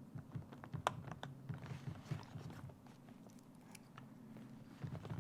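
Faint scattered clicks and light rustling: a metal zipper slider being handled and worked onto a leather jacket's zipper.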